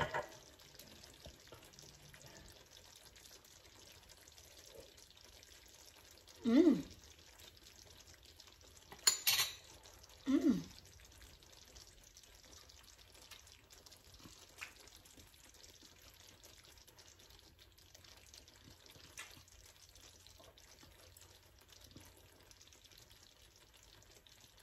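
Faint steady room background with a woman's short wordless vocal reactions as she tastes a spicy dish: two brief voice sounds that fall in pitch, about six and ten seconds in, with a short sharp noise just before the second.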